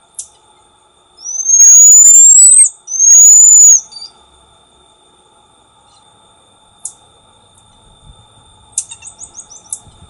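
Black-tufted marmoset giving two loud, long whistles that rise in pitch, each about a second long, the long-distance phee contact call. Later come a couple of short chirps and, near the end, a quick run of short high notes.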